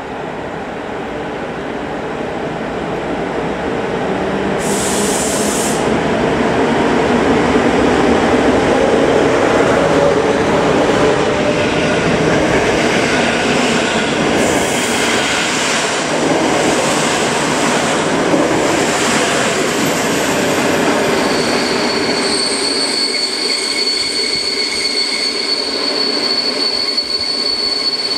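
Electric locomotive hauling a passenger train out of a station, growing louder as it draws level, then its carriages rolling past in a steady rumble. About two-thirds of the way through, a steady high-pitched wheel squeal sets in and holds as the train pulls away.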